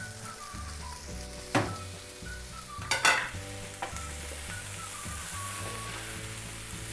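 Shredded chicken, onions and spices sizzling in a hot nonstick frying pan while a wooden spatula stirs them, with two louder scrapes of the spatula against the pan, about one and a half and three seconds in.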